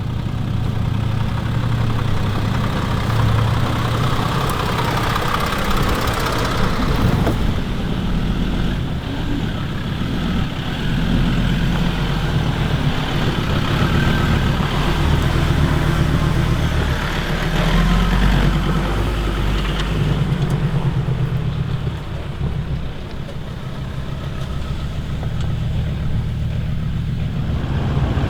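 Four-wheel-drive vehicle driving on a gravel track: the engine runs with its pitch shifting up and down as speed changes, under steady road noise.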